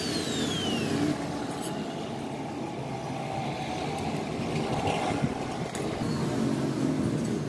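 Angle grinder with a cut-off disc spinning down after a cut, its whine falling steadily over the first second. Underneath it is a steady engine rumble, like motor vehicles.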